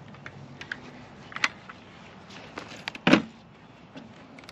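Scattered light clicks and one sharper, louder knock about three seconds in, from gear being handled.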